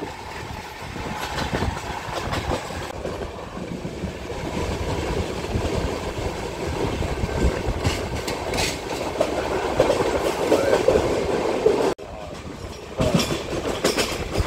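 Konkan Kanya Express passenger train running on the rails, heard from on board: a steady rumble of wheels with clicking over the rail joints. The sound breaks off abruptly about twelve seconds in and picks up again a second later.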